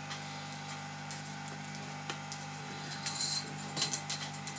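Plastic screen bezel of a Samsung NP535U3C laptop being pried and peeled away from the display: light plastic scraping and creaking, with a few sharper clicks about three to four seconds in, over a steady low hum.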